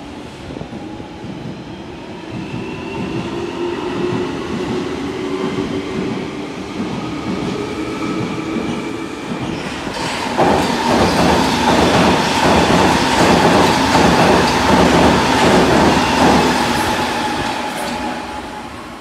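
A London Underground Jubilee line 1996 Tube Stock train accelerating away with a rising motor whine. Then a Metropolitan line S8 train runs past at speed, with loud rhythmic wheel clatter and a steady squealing tone, fading off near the end.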